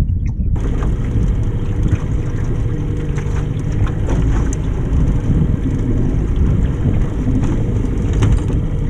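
Steady low rumble of a small aluminium fishing boat under way while trolling: wind on the microphone and the boat's motor running, with scattered light knocks and clicks from handling the rods.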